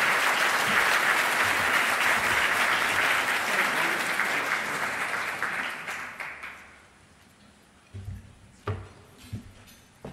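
Audience applauding, dying away about six seconds in. A few soft knocks follow near the end.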